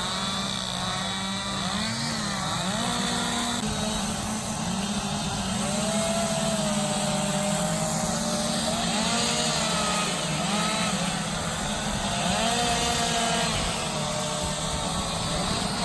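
Two-stroke chainsaw running during wood carving, its engine pitch rising and falling as the saw is throttled up and eased off in the cut.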